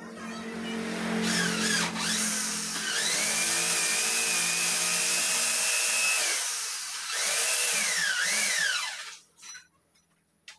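Corded electric drill running under load in two spells, its whine rising and falling in pitch as the speed changes: a long run of about six seconds, then a shorter one of about two seconds that stops about nine seconds in, followed by a few light knocks.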